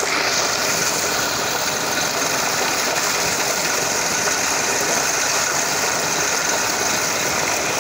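Tubewell water pouring steadily from its outlet pipe into a concrete tank, a constant rushing and churning of water.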